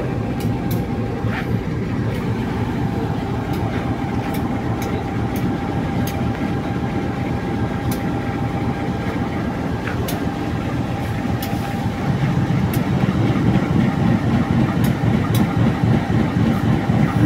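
CC 201 class diesel-electric locomotive's engine running at a steady idle close by, growing louder from about twelve seconds in.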